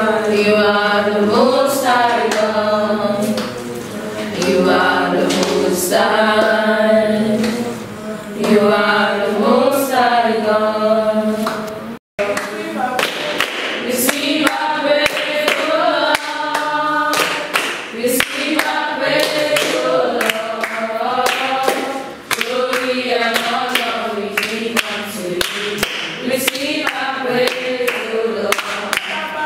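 A group of young voices singing a devotional song together, unaccompanied. After a short break about twelve seconds in, they clap steadily along in time.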